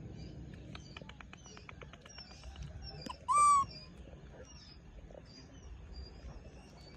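A baby macaque gives one short, high-pitched call about three and a half seconds in, lasting about half a second; it is the loudest sound. Small birds chirp faintly throughout, and a quick run of about ten clicks comes in the first two and a half seconds.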